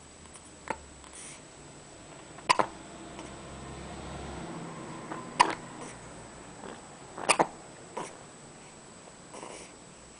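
Repeated short, sharp hiccups, roughly every two to three seconds, a couple of them coming as quick doubles.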